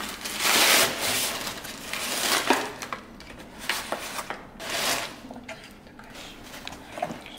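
A black metal cocktail bar set being handled and unpacked: several bursts of packaging rustling and scraping, with a few light metallic knocks and clinks.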